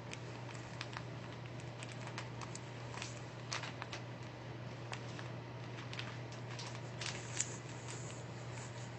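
A steady low hum with scattered light clicks and crackles over it, a few a second, the sharpest about three and a half seconds in and again near the end.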